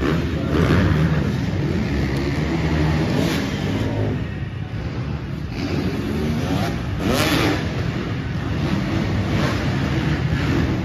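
Dirt bike engines revving on an arenacross track, the pitch rising and falling again and again as they accelerate and back off, with a loud rev about seven seconds in.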